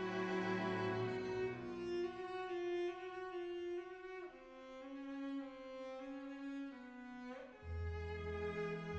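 Music of bowed strings playing long held notes, moving to a new note every few seconds with brief slides between them. A deep bass part comes in near the end.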